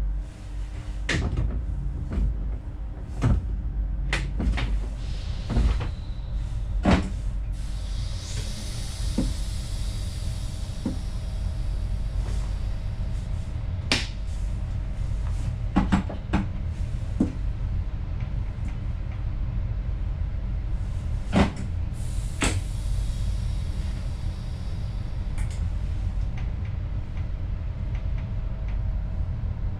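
Steady low rumble inside a train driver's cab moving slowly, with irregular clanks and knocks throughout and two spells of hiss, one about a third of the way in and one near three quarters.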